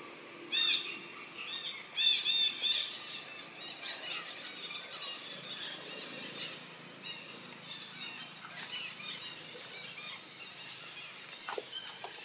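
High-pitched animal calls: a quick run of short, arching squeaks about half a second in and another about two seconds in, followed by fainter, scattered chirping.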